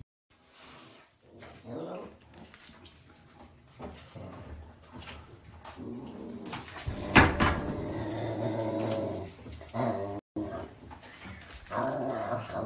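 A Savannah cat growling in long, drawn-out spells and hissing, with a sudden loud spit about seven seconds in, while it eats raw meat from its bowl.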